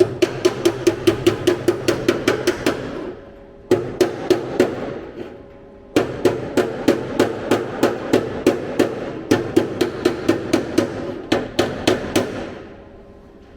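Hammer tapping on a sheet-steel repair panel: quick, even blows about six a second, each with a short metallic ring. They come in three runs with brief pauses, the longest run about six seconds, ending near the end.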